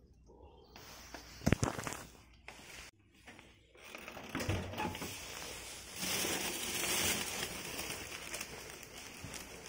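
A thin plastic grocery bag rustling and crinkling as a hand opens it and rummages through it, loudest in the middle to later part. A single sharp thump comes about a second and a half in.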